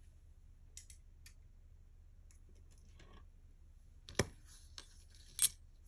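Small clicks of costume-jewelry earrings being handled and tapped against each other and the table, a few faint ticks and then two sharp clicks about a second apart near the end.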